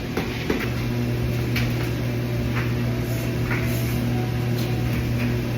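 A steady low machine hum that grows louder about half a second in, with a few light clicks over it.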